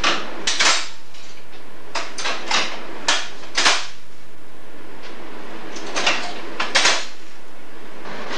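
Mechanical signal-box lever frame and point rodding being worked: a string of sharp, irregular metallic clanks and clicks, about nine in all, over a steady hum.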